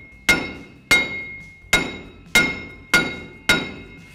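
Hammer striking the back of a rusted front wheel hub assembly on a 2WD Chevy Silverado to drive it out of the steering knuckle: six sharp metal-on-metal blows, about one every two-thirds of a second, each ringing briefly. The seized hub is just starting to separate.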